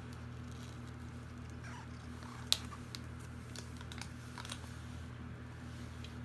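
Scattered light clicks and taps from handling things, with one sharper click about two and a half seconds in, over a steady low hum.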